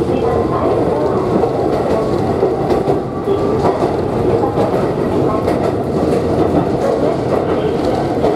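Steady rumble of a moving electric train, an ex-Tokyu 7000 series car, heard from inside the passenger car. The wheels are running on the rails, with a faint steady hum over the rumble.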